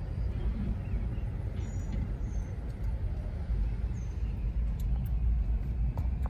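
Steady low road rumble heard from inside a moving car's cabin, with a few faint high chirps.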